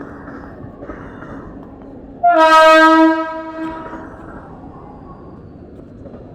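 A train horn sounds one loud blast of about a second, with a slight drop in pitch as it starts, then fades, over the steady noise of a busy railway station platform.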